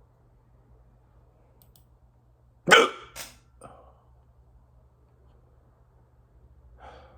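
A person hiccuping: one loud, sharp hiccup about two and a half seconds in, with two quieter sounds following within a second, and a faint one near the end.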